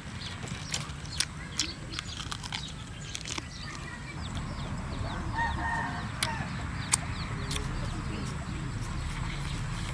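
Chickens clucking, with one pitched cackle about five seconds in. Over it come sharp smacks and clicks of someone eating with her fingers and chewing, and small birds chirping.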